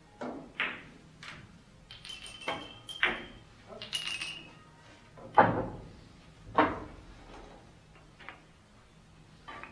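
Billiard play: a series of sharp clicks and knocks as billiard balls strike each other and the table, some with a brief high ring. The loudest knock comes about five and a half seconds in.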